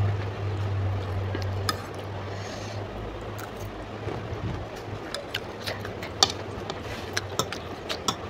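Metal fork clicking and scraping against a plate as noodles are scooped up, with close-up chewing and sharp mouth clicks as they are eaten. A low hum runs for the first two seconds.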